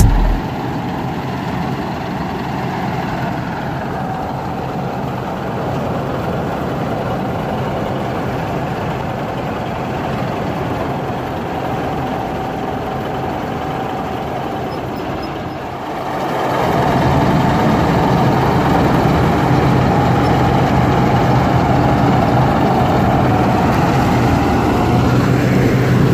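Kartar 4000 combine harvester's diesel engine running steadily, growing louder about sixteen seconds in.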